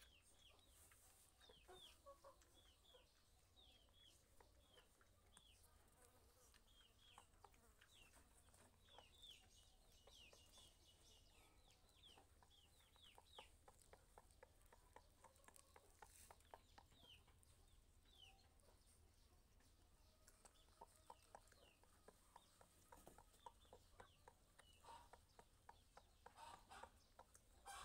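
Faint peeping of chicks: many short, high, falling peeps, thickest in the first half, over scattered soft clicks.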